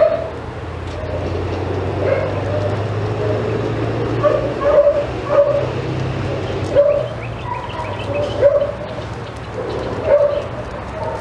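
A dog barking in short, sharp barks and yips at irregular intervals, about ten in all.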